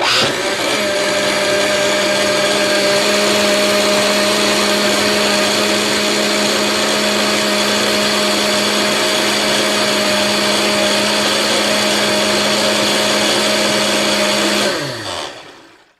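Electric blender motor switched on and running at a steady high speed with a grinding whine. Near the end it is switched off and winds down, its pitch falling as it fades out.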